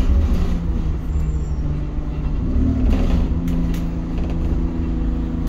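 Interior ride noise of an Alexander Dennis Enviro 200 single-deck bus on the move: a steady engine drone over low road rumble, with short rattles of the body and fittings over a bumpy road. About two and a half seconds in, the engine note rises briefly and then settles back lower.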